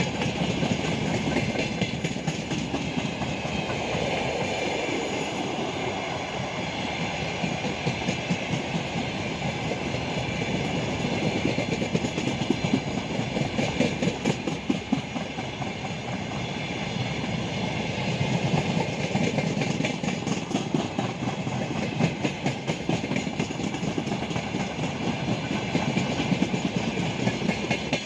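A broad-gauge freight train of coal wagons rolling past: a steady rolling rumble with repeated clicks of the wheels over the rail joints.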